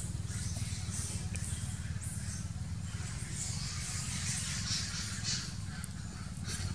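Rustling and crinkling of a leafy vegetable and dry leaves as macaques handle food on leaf litter, in patches that come and go, over a steady low hum.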